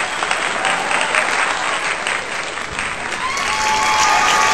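A crowd of onlookers clapping continuously in quick, uneven claps, cheering on two men doing a squat race. Raised voices join in from about three seconds in.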